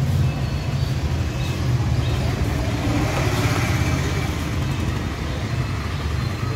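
Road traffic: a motor vehicle's engine rumbling close by, the sound swelling briefly in the middle.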